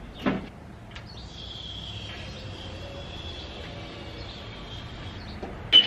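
Metal knocks from an engine hanging on an engine hoist as it is worked out of the engine bay: one short knock about a third of a second in and a louder clank near the end. A thin high squeal runs for a few seconds between them.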